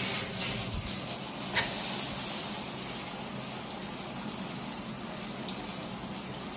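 Shower body-spray jets running, water spraying onto the tiled shower wall in a steady hiss.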